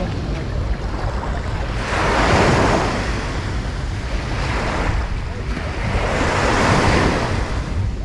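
Sea waves washing up the beach in two surges, about two seconds in and again near the end, over a steady rumble of wind on the microphone.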